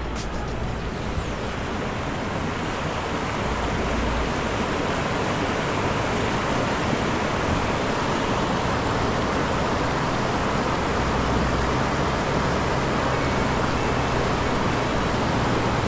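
Floodwater rushing over rapids in a swollen river, a steady loud rush that grows a little louder. Under it, the engine of a Toyota 80 Series Land Cruiser runs low as the four-wheel drive comes up to the crossing.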